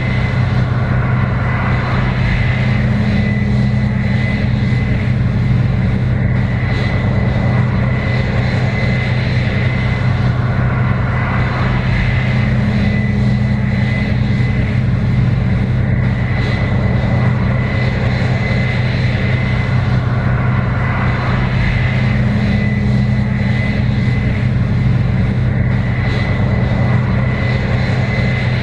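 Case IH 7120 Axial-Flow combine running steadily while harvesting corn: an even, deep engine drone with a thin, steady high whine over it.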